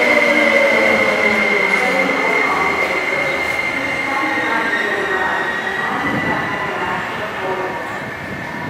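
MTR Ma On Shan Line electric train (SP1950 stock) running slowly along the platform and drawing away. A steady high whine and a lower motor whine slowly fall in pitch as the sound fades gradually.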